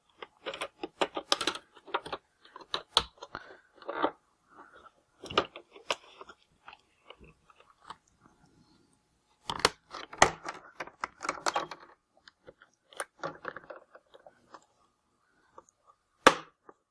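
Plastic laptop screen housing being pried and flexed apart: bursts of clicking and crackling as the snap clips give, with gaps between, and one sharp snap near the end.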